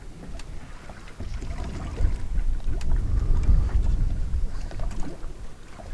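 Wind rumbling on the microphone aboard a small open boat drifting at sea, with water moving against the hull; the rumble grows louder about two seconds in, and a few faint clicks sound over it.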